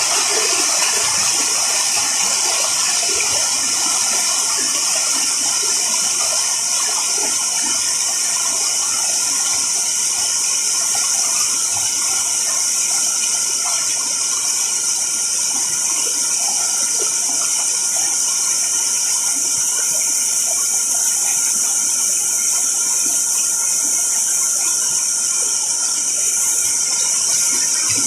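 Fast-flowing river water rushing steadily: a constant, even hiss with no breaks.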